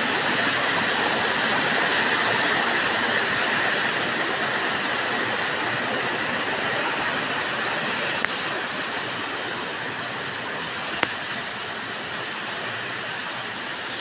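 Steady rush of water running over rocks at a small waterfall, slowly getting quieter. Two brief clicks in the second half.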